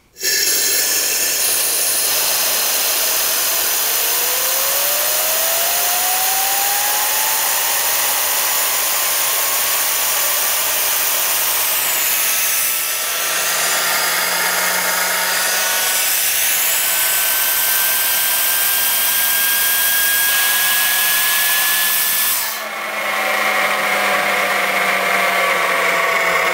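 Homemade Tesla turbine driven by compressed air at about 45–50 psi: a loud rushing hiss of air with a thin whine that climbs steadily in pitch over about twenty seconds as the rotor spins up. Near the end the sound changes abruptly and the pitch starts to fall.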